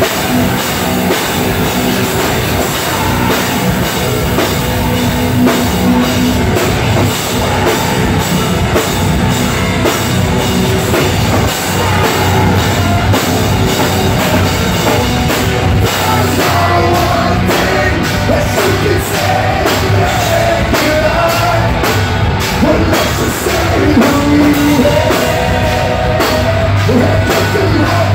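Loud live heavy rock band: electric guitars and a drum kit with steady, regular beats and cymbal hits, with singing over it in places.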